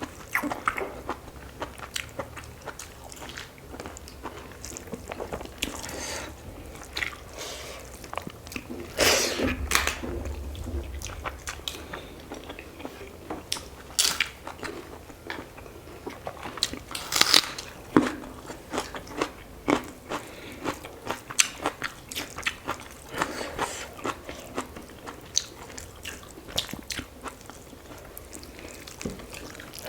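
Close-up eating sounds from a meal of chicken curry with rice: chewing and biting, with many short sharp clicks and smacks scattered irregularly, a few louder crunchy bites among them.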